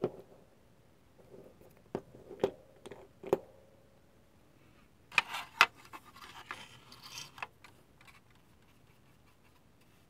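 Small hobby tools and materials being handled on a workbench: a few light clicks and taps in the first few seconds, then a couple of sharp clicks and a scratchy, scraping rustle for about two seconds past the halfway point.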